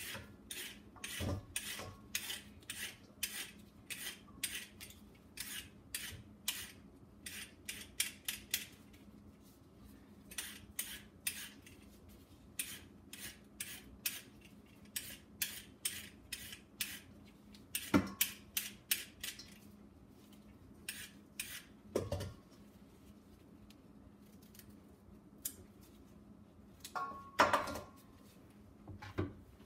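Hand vegetable peeler scraping strips off raw carrots, in quick repeated strokes of about two a second with short pauses. A few louder knocks come in between.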